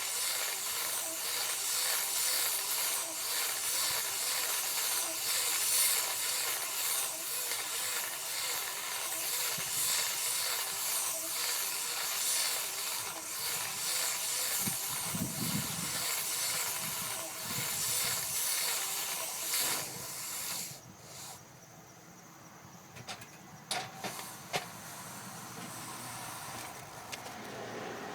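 Tractor-drawn hay baling machinery running with a steady loud hiss, which drops away about two-thirds of the way through, followed by a few sharp knocks.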